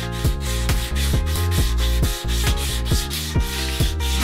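Hand sanding of a bare wooden Stratocaster body with a small piece of sandpaper held in the fingers, in quick back-and-forth strokes about three a second. The strokes smooth out a rough patch and tool marks on the body's contours.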